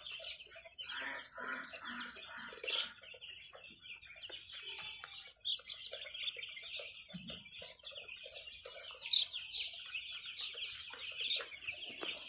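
A large flock of six-day-old broiler chicks peeping all together: a dense, unbroken chorus of high-pitched cheeps.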